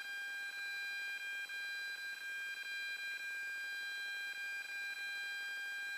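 A steady, unwavering high-pitched electronic whine with several overtones, with faint scattered ticks beneath it.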